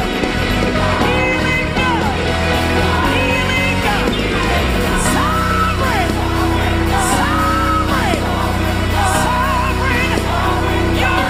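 Live Caribbean gospel praise music: several singers holding and bending long notes over a full band of drums and bass guitar, with shouts from singers and congregation. The music runs steadily, with cymbal crashes about every two seconds in the second half.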